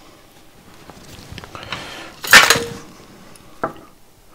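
Side cutters snipping a component lead on a perfboard: one sharp metallic snip about two seconds in, with a few lighter clicks and taps around it.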